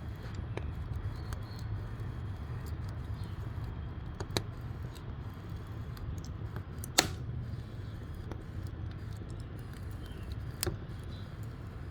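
Firewood burning in a wood-fired cooking stove: a steady low rumble of the fire with occasional sharp crackles and pops, the loudest about seven seconds in.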